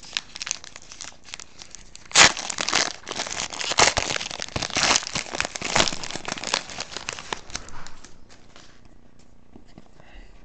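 Crinkling and tearing of a trading-card pack wrapper as it is torn open and handled, in irregular bursts, the loudest about two seconds in, dying down about eight seconds in.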